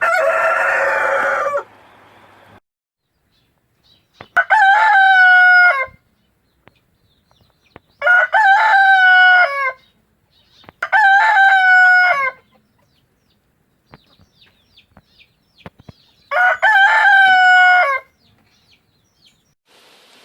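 A rooster crowing four times, each crow about a second and a half long, spaced a few seconds apart. A harsher, noisier chicken call comes first, from a different recording with background hiss.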